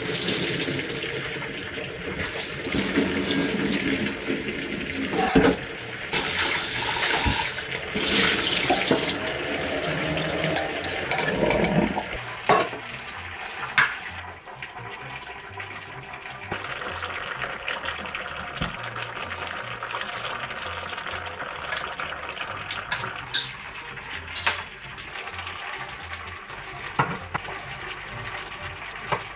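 Hot water and blanched garlic scapes poured from a frying pan into a mesh strainer in a stainless steel sink, with the tap running over them for about the first fourteen seconds. After that come scattered clinks of steel bowls and utensils, and a kitchen knife knocking on a wooden cutting board near the end as fish cake is sliced.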